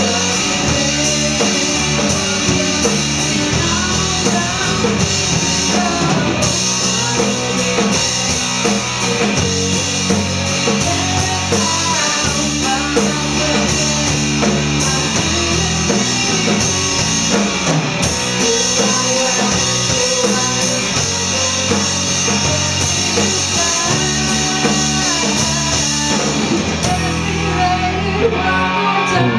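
Rock song played by a band on electric guitar, bass guitar and drum kit, with a female lead voice singing.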